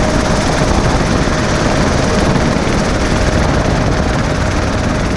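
Small propeller plane's engine running with the rush of wind through its open jump door, a loud, steady noise.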